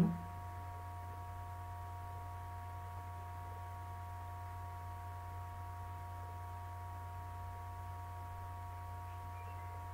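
Steady low hum with three faint, steady higher tones above it.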